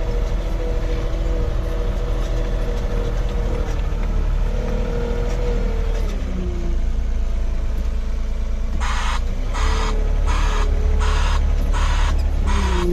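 Steady low machine rumble with wavering tones. About two-thirds of the way in, it is joined by regular hissing pulses, a little faster than one a second.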